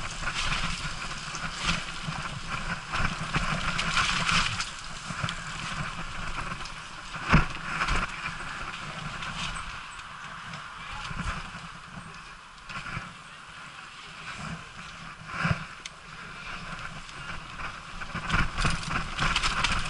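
Mountain bike ridden fast down a dirt forest trail: tyre and trail noise with wind rushing over the microphone, the rattle of the bike over roots and bumps, and a sharp knock about seven seconds in.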